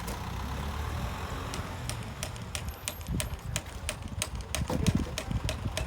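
Steady low engine-like rumble with a run of sharp clicks and knocks, about three or four a second, starting about a second and a half in: stone and tool knocks of foundation stone-laying work.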